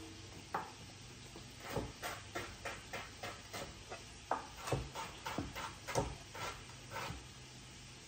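Chef's knife chopping carrots on a cutting board: one chop, then a steady run of quick chops, about three a second, that stops about a second before the end.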